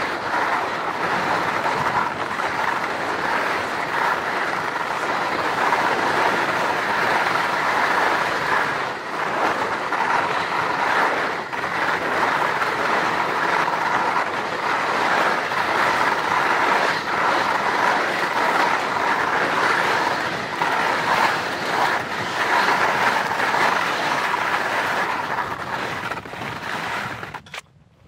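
HEAD skis sliding and scraping over hard, icy snow on a continuous run downhill, a steady rough hiss. It falls away sharply near the end as the skier stops.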